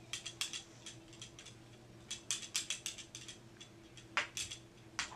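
Sunglasses being played with and knocked about, making quick runs of light plastic clicks and rattles in several clusters, over a faint steady hum.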